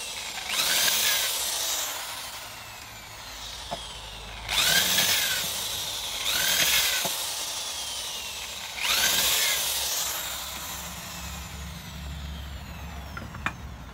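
Corded electric drill boring into a small wooden block in four bursts of about a second each, the motor's pitch rising and falling within each burst as the bit cuts.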